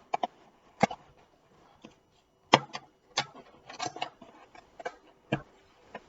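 Unpacking sounds: a string of sharp knocks and clicks, with a short rustle, as a boxed linear module and its packaging are handled. The loudest knock comes about two and a half seconds in.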